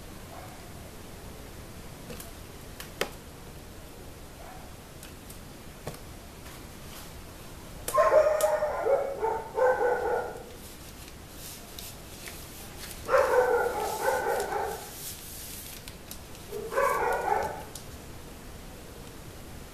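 A dog barking in three bouts of several barks each, a few seconds apart.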